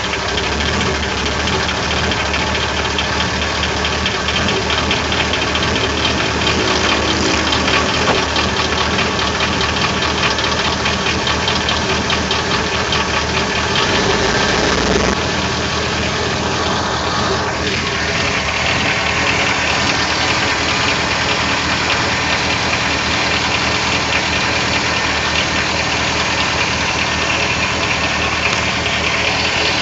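Chevy 6.0L Vortec V8 idling just after start-up through a Flowmaster exhaust, with a steady rapid knock running through the idle: the GM piston slap.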